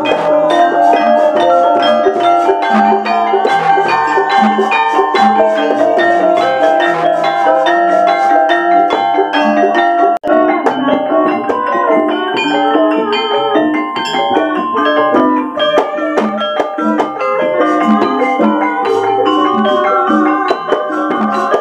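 Javanese gamelan ensemble playing: metallophones (saron and demung) ringing out a dense run of struck notes over kendhang hand drums and gongs. The sound breaks off for a split second about halfway through, then carries on.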